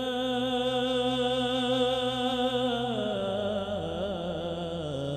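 A man sings an Arabic devotional song (sholawat): he holds one long, wavering note for about three seconds, then winds downward through an ornamented run. A low steady note sounds beneath it.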